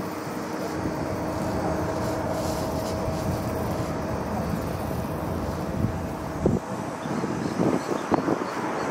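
Boeing 737 airliner's jet engines heard from the ground as it flies its final approach, a steady noise with a faint steady whine through it. About six and a half seconds in the low rumble drops away and short faint sounds come and go.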